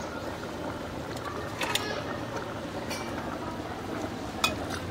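Steel ladle clinking against steel cooking pots, a few separate clinks with the loudest near the end, over a steady low background noise.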